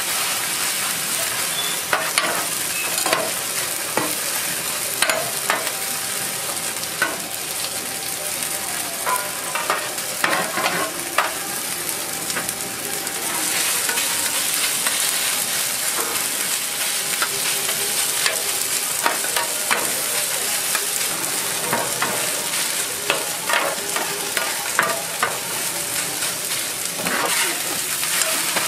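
Korean green-onion and seafood pancakes (pajeon) sizzling on a flat-top griddle, with frequent short scrapes and clinks as a metal spatula and kitchen knife press, cut and turn them against the griddle. The sizzle grows a little louder about halfway through.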